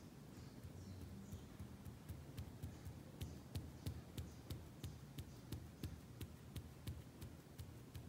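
A paintbrush stippling paint onto fabric laid over a board: light, quick taps, about three or four a second, over a faint low hum.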